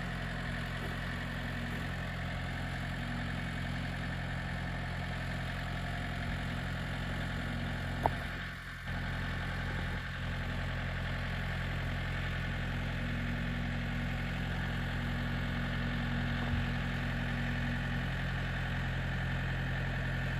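Compact farm tractor's engine running steadily while its front loader holds a heavy raised load. There is a single sharp click about eight seconds in.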